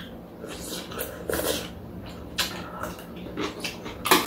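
Slurping and eating cold soup and noodles from metal spoons, with a scatter of light clicks of metal spoons and chopsticks against bowls and a metal tray, and one sharper clink near the end.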